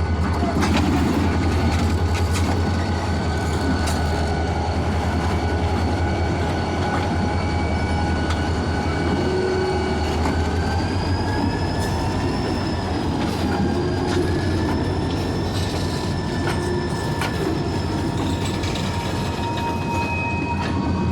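CSX train cars rolling past: a steady rumble with wheels clicking over rail joints and thin, high-pitched wheel squeal that wavers in pitch from about halfway through.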